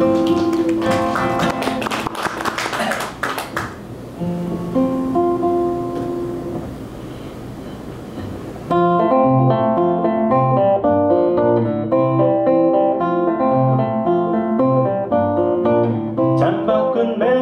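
Solo classical guitar played finger-style: a softer picked introduction that steps up about nine seconds in to a steady, rhythmic pattern of bass notes and chords. A man's singing voice comes in near the end.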